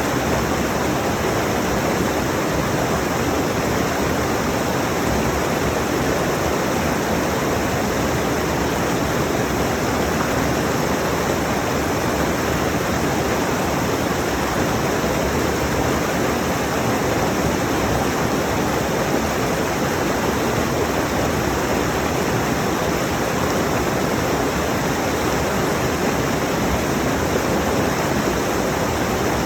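Rushing mountain stream: a steady, even rush of water over rocks, close to the microphone.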